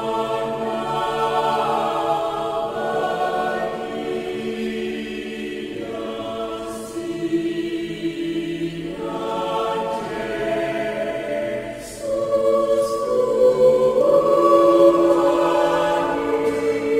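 Mixed choir of women's and men's voices singing a soft, solemn song in parts, holding long chords. The phrases break off briefly now and then, and the singing grows louder about twelve seconds in.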